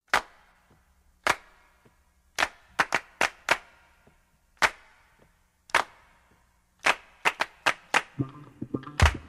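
About a dozen sharp, echoing percussive hits at uneven spacing, the first few about a second apart and then closer together. About eight seconds in, a low bass line comes in under them as music starts.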